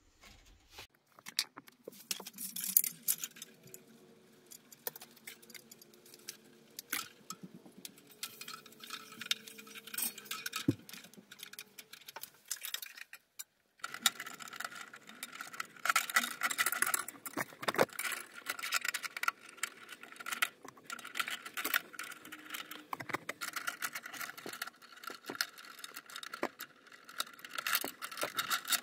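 Hands handling insulated electrical wires in a breaker panel: irregular rustling, scraping and light clicking of wire and plastic. In the second half a steady faint whine runs underneath.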